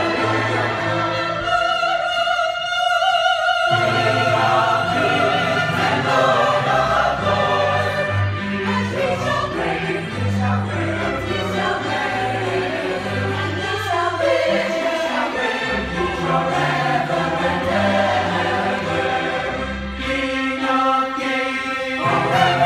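Mixed church choir of men and women singing together, with instrumental accompaniment underneath.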